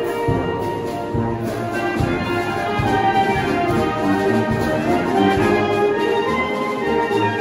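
Brass band playing dance music: held horn melody over a steady low beat about every second.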